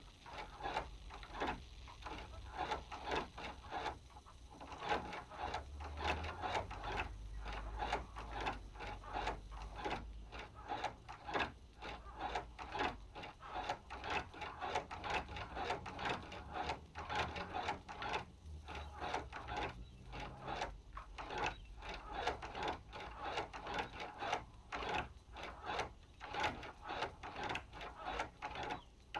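Hand-cranked Chinese patcher leather sewing machine stitching leather as its handwheel is turned: a continuous run of mechanical clicks and clacks as the needle and shuttle cycle.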